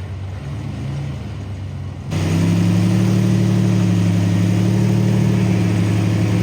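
Off-road rock crawler's engine running at a low, steady speed while crawling over rock. About two seconds in it turns abruptly louder and fuller.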